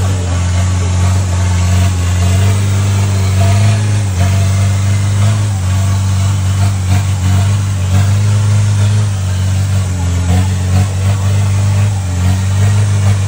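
Off-road Toyota Hilux 4x4's engine running loud and steady at a constant low drone, its revs rising and dipping slightly now and then.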